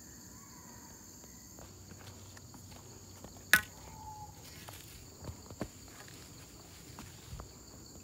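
Footsteps on a dirt forest trail, a few soft thuds, against a steady high-pitched chorus of insects. A single sharp knock, the loudest sound, comes about three and a half seconds in.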